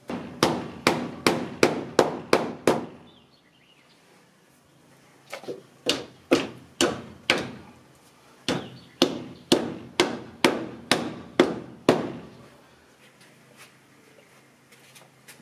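A hammer driving nails into wooden trim boards over plastic lattice: a run of steady blows at about two a second, a pause, then a longer run that stops well before the end.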